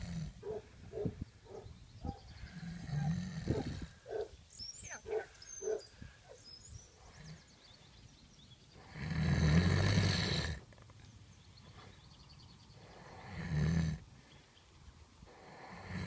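A Gypsy cob filly, asleep lying down, snoring: a long snore every few seconds, the loudest about nine seconds in and lasting nearly two seconds, with short soft sounds between the snores in the first half.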